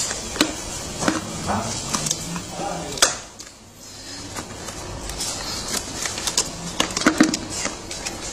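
Plastic clicks and knocks as a chrome-plated plastic hubcap is handled and pressed into a ride-on toy truck's wheel. There is one sharp snap about three seconds in and a quick run of clicks near the end.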